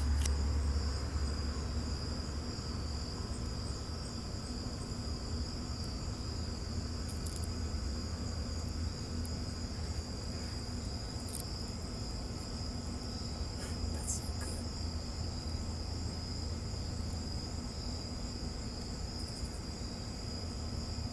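A cricket trilling steadily at a high pitch, over a low steady hum, with a few faint ticks.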